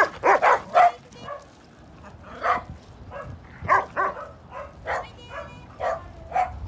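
Dogs barking during play: a quick run of loud barks in the first second, then single barks about once a second.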